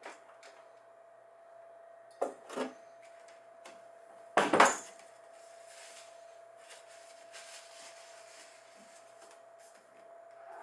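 Metal knocks and clatter as a portable gas stove and its hose-connected gas canister are lifted off the top of a mini fridge: two sharp knocks about two seconds in, then a louder clatter about four and a half seconds in. A faint steady hum runs underneath.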